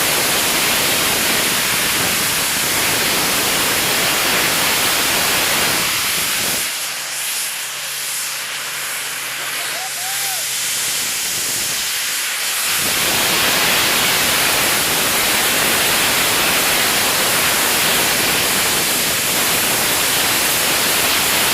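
Hydrogen peroxide rocket belt firing: a loud, steady rushing hiss of its steam exhaust jet, whose low rumble thins out for several seconds in the middle.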